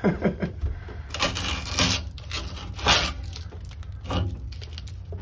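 Four short rustling, scraping handling noises at a metal ceiling return-air filter grille, over a steady low hum.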